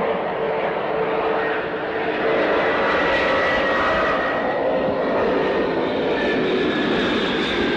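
Jet engines of an Antonov An-124 running, its four Lotarev D-18T turbofans giving a steady rush with a high whine that drifts slightly lower in the second half.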